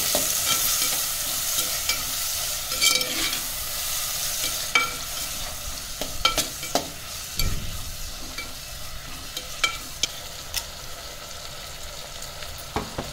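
Chopped onions and tomatoes sizzling in hot oil in a clay pot while a perforated steel spatula stirs them, clinking and scraping against the pot now and then. The sizzle eases a little as it goes.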